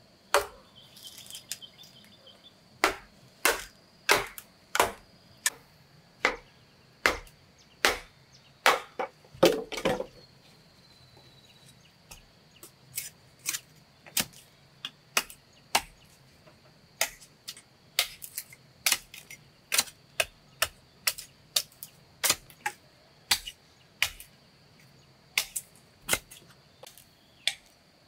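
Chopping blows on wood or bamboo: about a dozen hard strikes, roughly one every 0.7 seconds, then a pause of about two seconds, then a longer run of lighter, quicker strikes.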